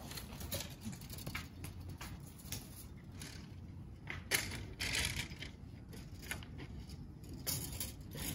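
Quiet scattered crunches and rustles of a small group shifting their feet on a gravel-and-sand courtyard, with a few sharper clicks around the middle.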